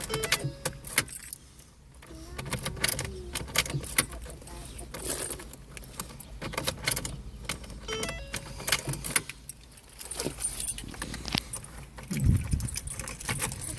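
Keys jangling and clicking on a key ring as the ignition key of a 2009 Ford Focus is worked, in irregular clusters of sharp clicks; no engine starts.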